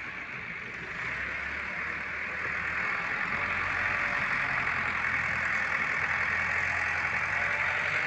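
An engine running steadily, starting up or coming closer about a second in, under a strong hiss.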